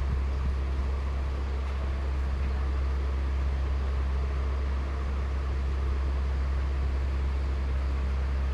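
A steady low hum with a light hiss of background noise, unchanging throughout.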